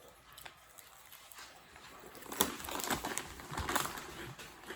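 Dry crackling and crunching of fried pork rinds, quiet at first, then a run of quick irregular clicks and soft thumps from about two seconds in.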